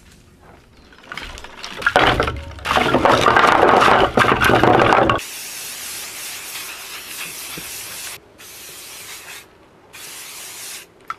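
About four seconds of loud, rough noise, then insect repellent sprayed onto bare legs in three hisses: the first about three seconds long, the other two about a second each.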